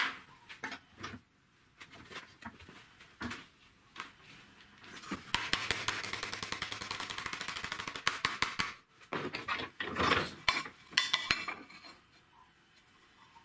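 A metal plate being bent and handled in a steel bench vise: light metallic clicks and scraping, a fast rattling run of ticks partway through, then a few louder clanks of metal on metal.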